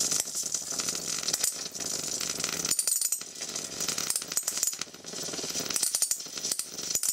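High-voltage arc from a flyback transformer burning as a flame-like plasma across a screw-electrode spark gap: a steady, hissing buzz full of sharp crackling snaps.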